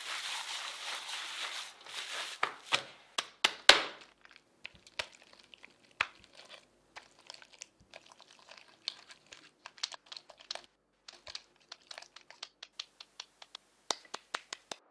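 Hands squishing and kneading raw ground beef mixed with chopped fat in a stainless-steel bowl. A few sharp wet slaps follow between two and four seconds in, then a long run of small sticky clicks and crackles as the meat is pressed out on parchment paper.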